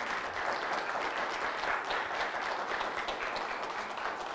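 Small audience applauding, a steady patter of many hands clapping.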